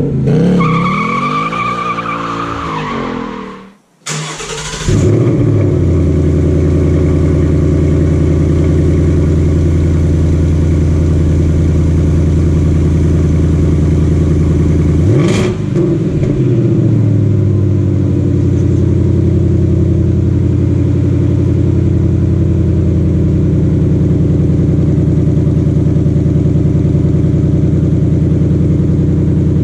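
2018 Ford Mustang GT's 5.0-litre V8 on its stock quad-tip exhaust, cold-starting about four seconds in with a sharp flare and settling into a steady fast idle. One quick rev blips up and back down about fifteen seconds in. Before the start there is a falling whine and a moment of quiet.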